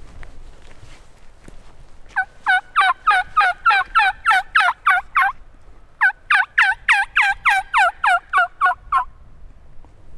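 Turkey yelping: two fast runs of loud, sharp yelps at about five a second, the first starting about two seconds in and the second about six seconds in, each lasting about three seconds.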